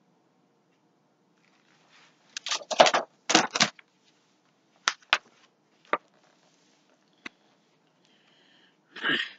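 Close handling noise: a cluster of rustling knocks as a hardcover picture book is set aside, then a few sharp, separate clicks and one more short rustle near the end.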